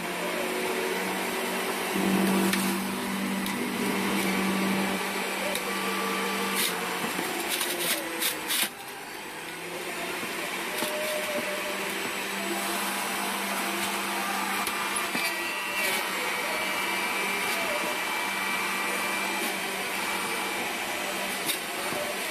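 Electric centrifugal juicer running, its motor humming steadily as celery stalks and Chinese cabbage are pressed down the feed chute with the pusher and shredded. A few sharp clicks sound between about seven and nine seconds in.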